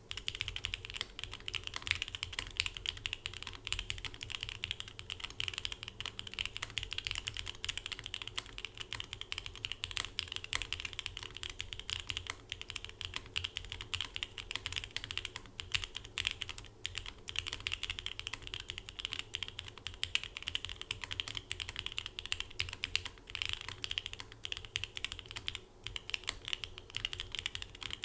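Steady, fast typing on a Babylon 65% mechanical keyboard: lubed and filmed Jwick Red linear switches on an FR4 plate in a Poron gasket mount, with DMK Vintage keycaps. The keystrokes come as a dense, continuous patter of quick clacks, starting right at the outset.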